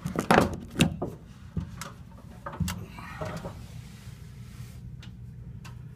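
Handling noise: several knocks and clicks, most in the first second, and a brief rustle about three seconds in, over a steady low hum.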